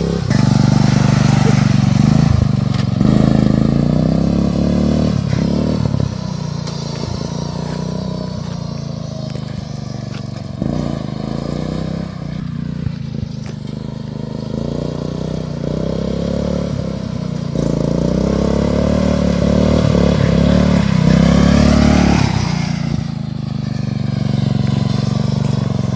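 Off-road riding lawn mower's engine run hard, revving up and easing off again and again as it is driven.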